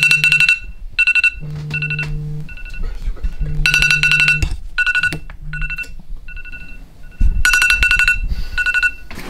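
Smartphone alarm ringing: repeated short bursts of rapidly trilling electronic beeps, with a lower steady tone between the bursts.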